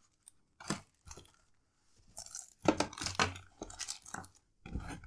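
Packaging being handled while unboxing: crinkling and rustling in short irregular crackles, a few scattered ones at first and then a denser run from about halfway.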